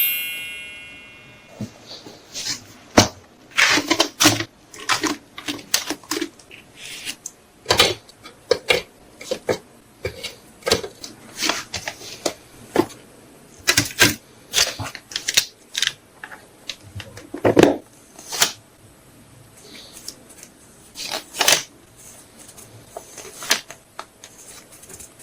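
Hands packing photocards and their packaging: irregular taps, clicks and short crinkly rustles of cards and wrapping being handled, with brief pauses between them.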